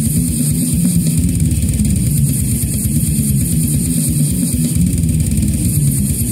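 Brutal death metal instrumental: heavily distorted, low electric guitar riffing over drums with a fast, steady run of kick-drum strokes, the whole mix thick and heavy in the low end.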